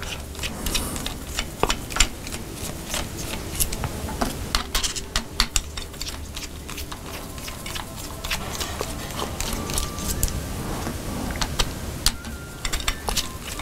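Small screwdriver backing the screws out of a Zhiyun Crane 2 gimbal's metal mounting plate: a run of small, irregular metallic clicks and ticks as the driver works and the loose screws are set down on the table.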